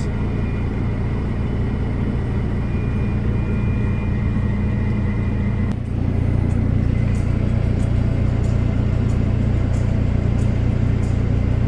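Steady low engine rumble of a motor vehicle running, with a faint steady higher tone; about six seconds in the sound shifts and the low rumble grows stronger.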